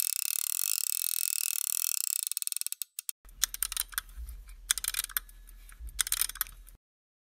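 Fast, steady mechanical clicking as a screwdriver turns a small screw in a polished metal plate of a Stirling engine generator kit. It stops about three seconds in and gives way to scattered light clicks and taps as small metal parts are fitted by hand.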